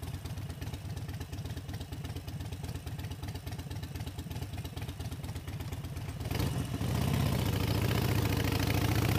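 Harley-Davidson Sportster 72's 1200 cc air-cooled V-twin idling at a stop, then opening up about six seconds in as the motorcycle pulls away and stays on the throttle.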